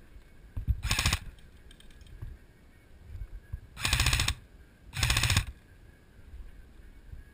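KWA Mod 2 airsoft rifle firing three rapid full-auto bursts. The first is short, about a second in, and the other two come close together around four and five seconds in.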